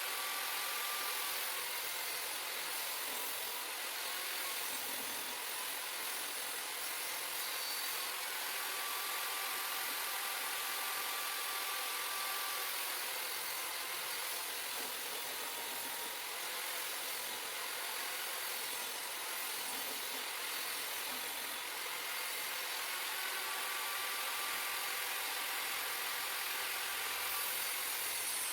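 Table saw running and ripping a groove down the middle of wooden frame pieces, a steady loud whir with a faint tone that comes and goes.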